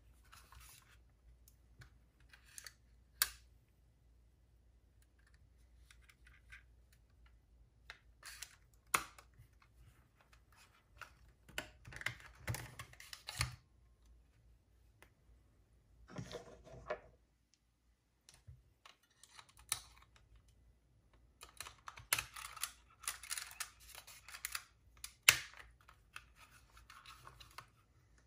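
Irregular small clicks, taps and scraping from hands handling and working on a cassette walkman, with a sharp click now and then, the loudest near the end. A faint steady low hum runs underneath.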